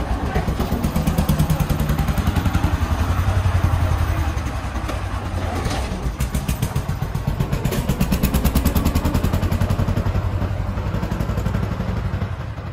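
A vehicle engine running close by with a rapid, even beat of firing pulses, easing a little near the end.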